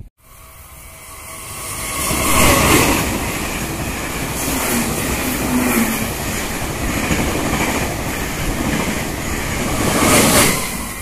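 Passenger train passing close by at speed along a station platform: a steady rush of wheel and track noise. It starts abruptly, swells about two seconds in, and swells again near the end.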